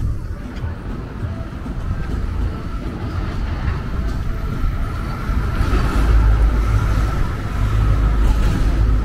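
A motor vehicle running close by on a street, its low rumble growing louder about halfway through.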